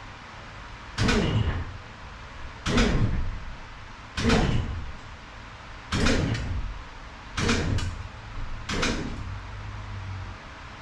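A jack being worked by hand to raise a car: six creaking strokes about a second and a half apart, each sliding down in pitch.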